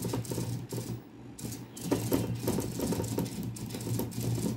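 SG90 micro servos of a hobby robot arm jittering and straining: a steady buzz under irregular, rapid clicking and rattling. The motion is jerky, which the builder puts down to the control program not smoothing the incoming data.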